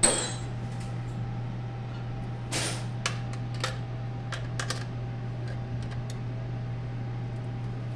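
Hand tool clicking and knocking on metal fittings as bolts are undone with a 10 mm wrench: one sharp knock at the start, a brief scrape about two and a half seconds in, then scattered small clicks, over a steady low hum.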